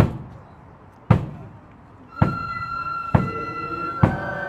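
Marching band striking up: a bass drum beats time about once a second, and about two seconds in the flutes come in on a held note that steps higher, then lower again, as the tune begins.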